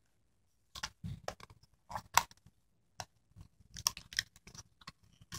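Cardboard candy box being handled and opened by hand: irregular crinkles and small clicks as the flaps are worked and a cardboard insert is pulled out, starting about a second in.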